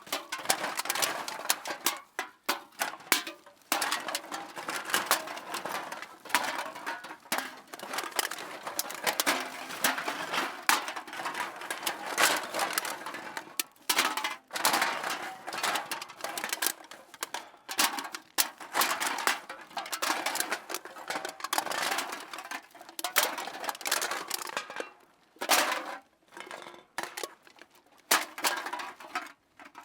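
Cans being dropped and shuffled into a bag, clinking and knocking against each other in a dense, irregular run with a few short pauses.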